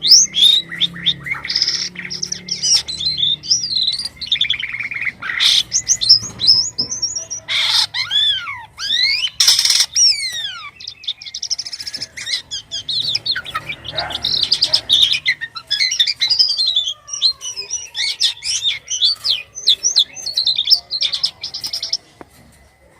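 Jalak kapas starling singing busily: a long, varied run of chirps, whistles and quick sweeping notes, broken by a few harsh rasping calls. The song stops about a second before the end.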